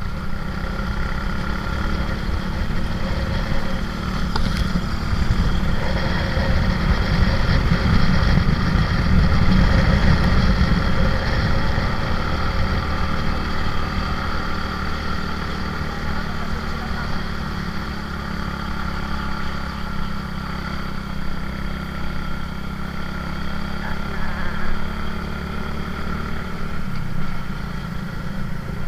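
Motorcycle riding along a road, its engine running steadily under a heavy rumble of wind on the mounted camera's microphone, which grows louder for a few seconds about a quarter of the way in and then settles.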